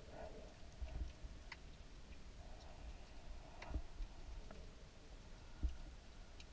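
Ambient sound recorded underwater: a low, muffled rumble of moving water with scattered sharp clicks and ticks, the loudest about a second in, near the four-second mark and near the end.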